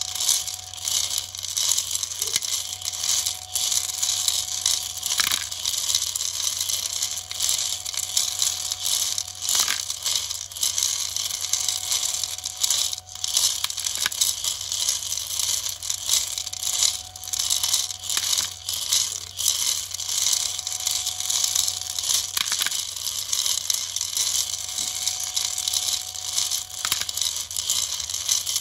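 Steel M3 hex nuts continuously clattering and rattling against each other and the plastic wall inside a slowly turning 3D-printed rotary hopper drum, a dense stream of small metallic clicks. Under it runs a steady thin tone from the Nema17 stepper motor driving the drum.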